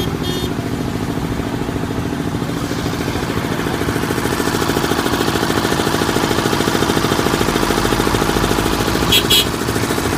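An engine running steadily close by, a rapid even chugging with traffic around it. Two short high-pitched beeps sound near the end.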